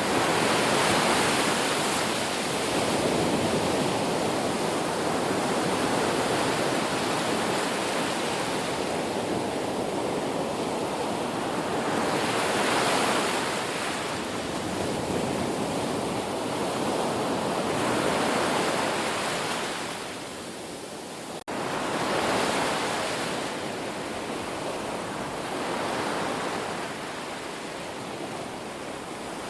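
Ocean surf: waves breaking and washing in, swelling and falling back every few seconds. A little past two-thirds of the way through the sound dips and then cuts back in abruptly, like an edit in the recording.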